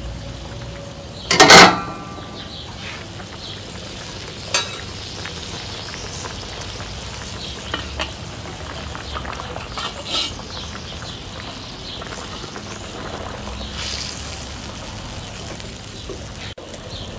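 Soy-sauce braising liquid bubbling and sizzling in a steel wok while a whole chicken is turned with a wooden spatula, with a few scraping knocks. About a second and a half in, the metal lid clanks loudly and rings.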